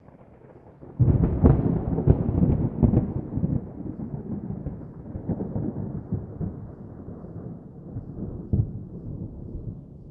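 Thunder: a loud crackling clap about a second in, then a long low rumble that slowly dies away, with a few more cracks along the way.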